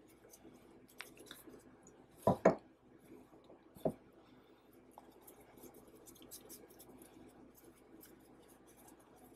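Hands scooping and pressing chicken into seasoned flour in a glass bowl: a soft, scratchy rustle of flour with fine ticks throughout. Two thumps close together a little over two seconds in, and another about four seconds in, are the loudest sounds.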